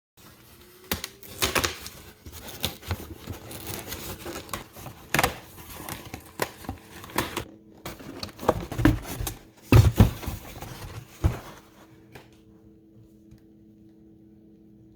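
Packaging of a box of Christmas lights being handled and opened: irregular clicks, crinkling and tearing for about eleven seconds, then stopping, leaving a faint steady hum.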